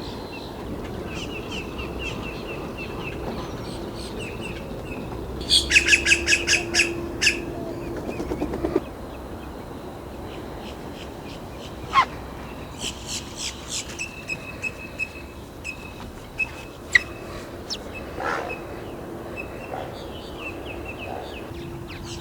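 Mixed wetland birds calling: a loud, rapid series of about nine harsh notes around six seconds in, trailing into quick ticking notes, with scattered chirps, whistles and single sharp calls throughout.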